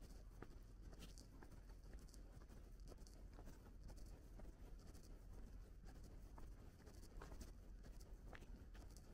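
Near silence: faint, scattered small ticks and crackles over a low rumble.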